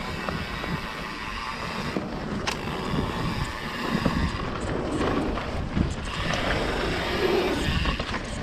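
Wind buffeting the microphone and mountain bike tyres rolling over a dirt trail during a descent, with scattered knocks and rattles from bumps.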